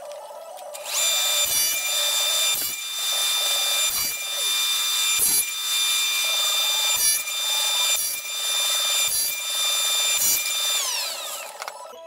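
Table saw with a dado stack starting up and running with a steady whine, cutting box joint fingers in a pine board in about eight passes roughly a second apart. Near the end the saw is switched off and its whine falls in pitch as the blades spin down.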